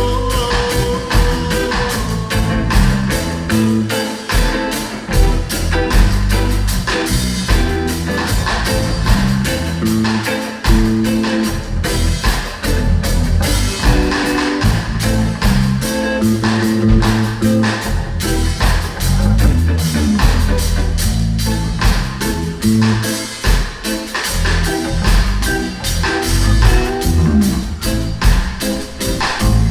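A guitar, bass and drum-kit trio playing an instrumental passage without vocals, with a steady beat and a moving bass line.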